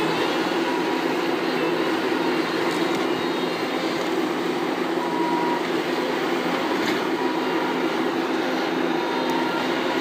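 Bobcat compact track loader's diesel engine running steadily at working speed while the loader arm works the bucket, with a few faint knocks about three, seven and nine seconds in.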